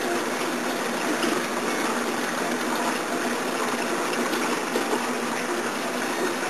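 Steady rush of running water from a saltwater reef aquarium's circulation, with a faint pump hum underneath.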